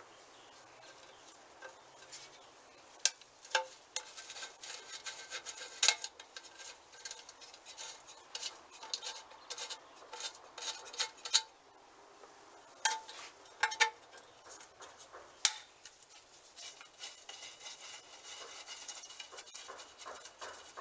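Scattered sharp metallic clicks and clinks of a screwdriver and small screws against an old bench grinder's metal housing and wheel guard as it is taken apart. Toward the end the clicks give way to a faster, fainter ticking.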